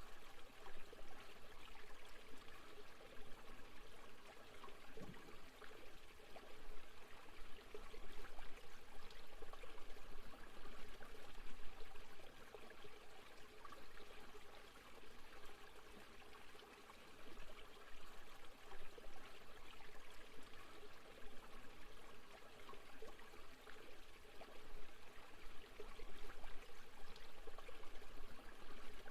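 Gentle waterfall ambience: a steady wash of flowing and trickling water that swells and eases a little.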